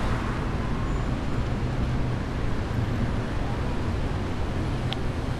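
City street traffic noise: a steady rumble and hiss of cars and engines along the avenue, with a brief high click near the end.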